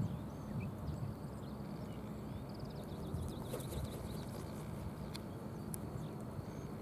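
Small songbirds singing faintly over a steady low outdoor rumble, with a repeated trilling phrase about three seconds in and a couple of sharp clicks near the end.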